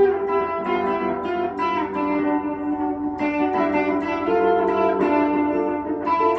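A small box-bodied guitar played through effects, picking a melody of ringing notes, a few notes a second, toward a 'tropical' tone.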